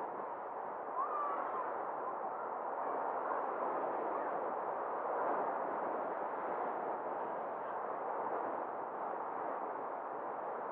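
Steady road and wind noise from a car driving along a street, with a brief faint chirp about a second in.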